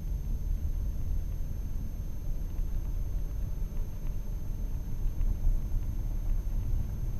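Ford Mustang driving at a steady speed, heard from inside the cabin: a steady low engine and road rumble.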